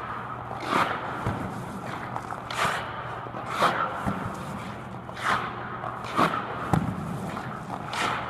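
Hockey goalie's skate edges scraping and carving the ice in repeated pushes and stops, a sharp scrape every second or so, with leg pads dropping onto the ice, over a steady low hum.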